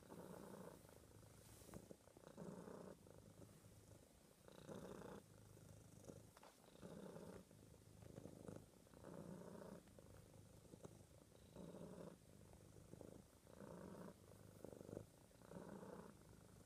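Domestic cat purring steadily, the purr swelling and easing with each breath in and out.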